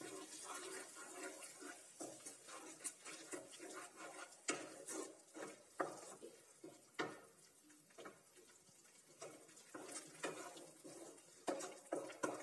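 Spatula scraping and knocking against a non-stick kadai as a thick onion-tomato masala is stirred, in irregular strokes with occasional sharper taps.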